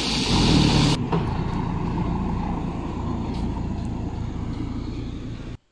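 Passenger jeepney's engine passing close on a dirt road, then steady low vehicle and road noise after a cut about a second in.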